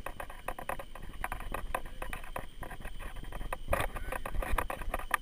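Mountain unicycle rolling along a dirt trail littered with leaves and twigs: a dense, irregular run of crunches, clicks and knocks over a low rumble, with a louder clatter a little before four seconds in.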